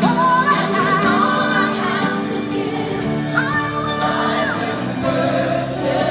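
Background music: a song with a solo singer's voice wavering over sustained instrumental backing.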